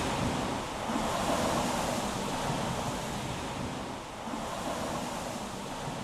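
Waves washing onto a shore with wind: a steady rushing that swells and eases slowly.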